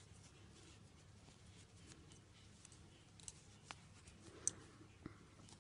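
Near silence, broken by a few light clicks of double-pointed knitting needles knocking together as stitches are knitted, in the second half and loudest about four and a half seconds in.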